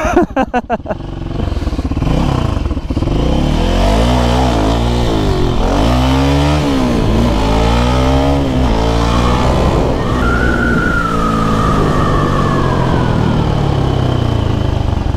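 Motorcycle engine accelerating hard as the bike pulls away. The pitch rises and drops several times as it shifts up through the gears, then falls slowly as the bike slows.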